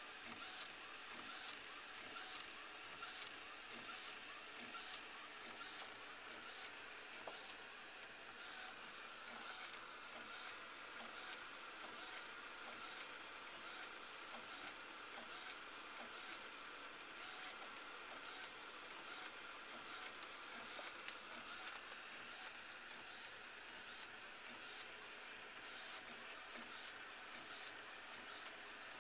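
LogoJET inkjet printer printing, its print carriage shuttling back and forth in a steady, regular rhythm of passes.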